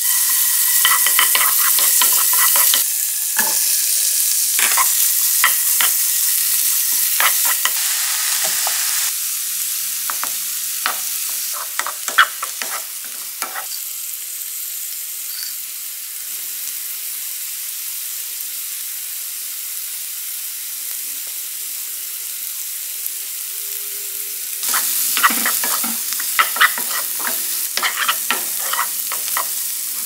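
Butter, garlic, shrimp and corn sizzling in a nonstick frying pan while a wooden spoon stirs them, with clusters of sharp scrapes and taps of the spoon against the pan. The sizzle is louder during the first nine seconds or so and again near the end.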